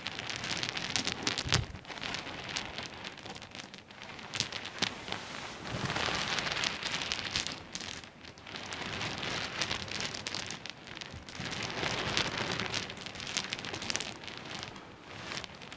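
Small pebbles knocking and clattering against each other in dense runs of clicks that swell and fade every couple of seconds, with one heavier knock about a second and a half in.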